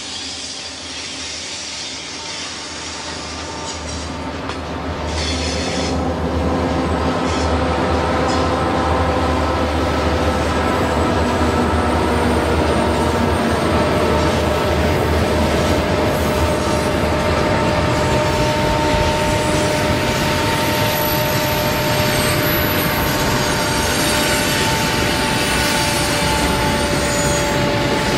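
N scale model train passing: a lash-up of several diesel locomotives hauling double-stack container cars. It grows louder about four to six seconds in as the train comes near, then runs on steadily with a few thin, steady whining tones.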